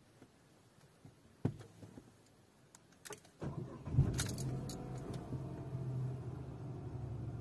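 Dacia Logan engine started from inside the cabin: a few faint clicks, then a short crank that catches about four seconds in, after which the engine settles into a steady idle.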